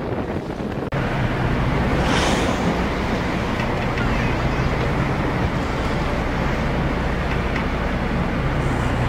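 Wind buffeting the microphone on a boat at sea, over the boat's steady low engine hum. The sound drops out briefly about a second in, and there is a short hiss about two seconds in.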